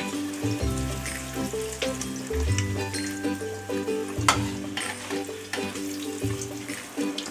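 Breaded ice-cream balls deep-frying in very hot oil, a steady sizzle with scattered crackles, under background music.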